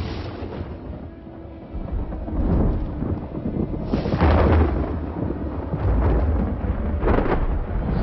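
Thunder from a severe thunderstorm: a low rumble builds about two seconds in, with a loud peal about halfway through and another near the end.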